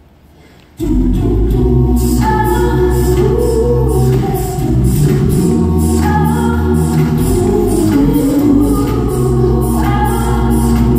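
A cappella vocal group singing in close harmony over a deep sung bass line with a steady beat, starting abruptly about a second in.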